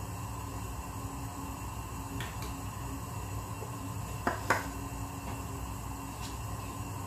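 Steady low hum of a gas hob burner on full flame under a lidded stainless-steel pot of water heating toward the boil. Two sharp metallic ticks come in quick succession about four seconds in, with fainter single ticks around two and six seconds.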